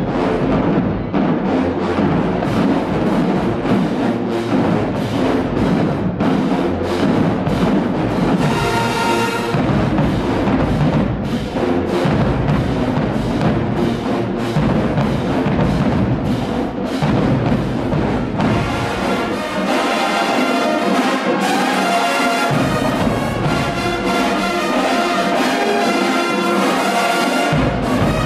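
Loud brass band music with heavy drums, playing a dance routine. After about two-thirds of the way through, the deep bass drops out for stretches while the horns carry on.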